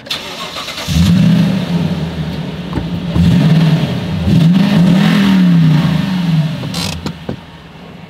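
Toyota Tundra pickup's engine revved while standing, heard from inside the cab: it is held at raised revs for a few seconds with brief dips, then rises once more and falls back near the end.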